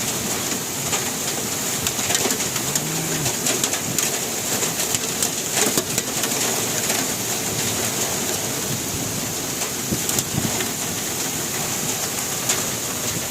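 Heavy rain falling steadily, a dense hiss with scattered drop ticks. About three seconds in, a single short low coo, like a dove's, sounds through it.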